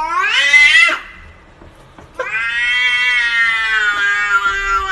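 Domestic cat meowing: a call that rises in pitch and ends about a second in, then a long, drawn-out meow starting about two seconds in.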